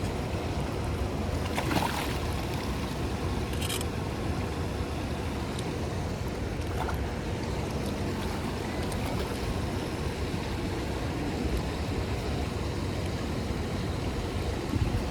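Steady wind rumble on the microphone over water moving around a kayak on a river, with a couple of light knocks about two and four seconds in.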